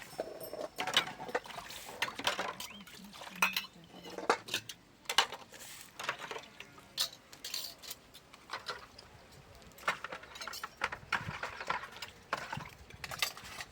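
Irregular sharp clinks and knocks of hard objects, a few a second at times, with a voice now and then.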